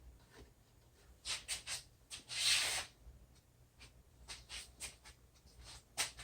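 Short scraping strokes of a hand tool on wood: three quick strokes, then one longer one, then lighter strokes. A small lip is being taken down so the wooden fence is all the same height.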